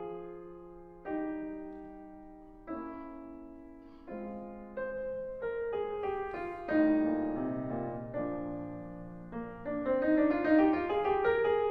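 Solo piano music. Slow chords are struck about every one and a half seconds and left to ring and fade. About halfway through it moves into a busier passage with a rising line of notes near the end.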